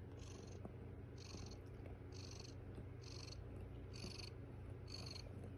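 Domestic cat purring steadily, close to the microphone, with a soft hiss repeating about once a second.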